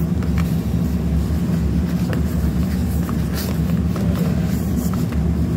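Steady low machine rumble, with light clicks and rustles from product boxes and a padded mailer being handled.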